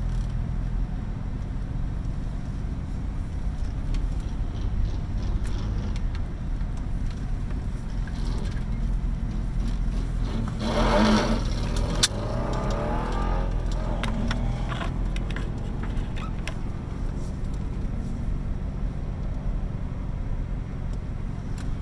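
Cabin sound of a turbocharged C5 Corvette's V8 idling low and steady as the car creeps forward. About halfway there is a louder stretch of revving engine with rising pitch and a sharp click.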